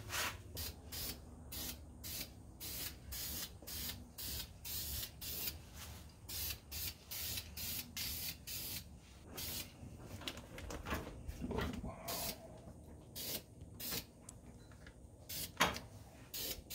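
Aerosol spray-paint can of black enamel hissing in short bursts, about two a second, as the nozzle is pressed and released in quick passes.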